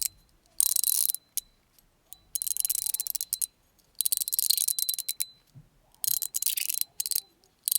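Mechanical fan fidget slider being worked, its ball-and-spring detent mechanism giving fast rattling runs of clicks in four short bursts, with single clicks between them. The action is not the smoothest or most satisfying.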